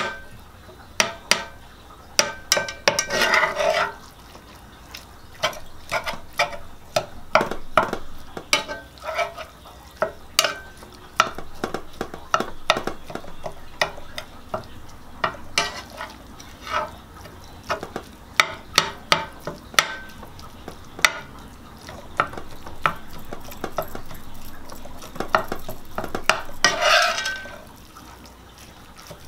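Metal fork clicking and scraping against an electric skillet as lean ground meat is chopped up and stirred while it browns: many quick, irregular taps, with two longer scrapes, one a few seconds in and one near the end.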